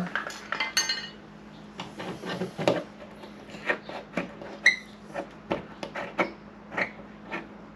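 Paintless dent repair tools clicking and tapping against the aluminum hood panel as dents are worked out little by little: irregular sharp taps, one with a brief metallic ring about two-thirds of the way through.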